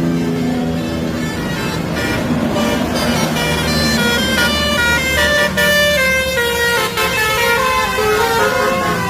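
Bus 'telolet basuri' musical horns playing a tune of quick stepped notes, several tones sounding together, over the low running of heavy bus engines. The horn notes come in about two seconds in and keep going.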